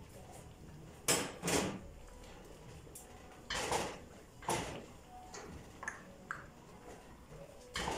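A whisk stirring a liquid mixture in a pot, knocking and scraping against the pot's sides in a series of short bursts.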